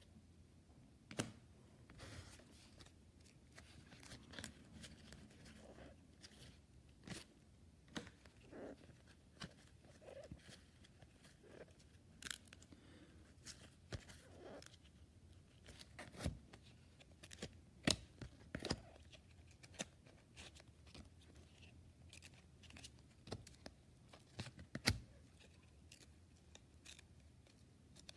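Trading cards being handled and flipped through by hand: faint, irregular clicks and short scrapes of card stock sliding against card stock.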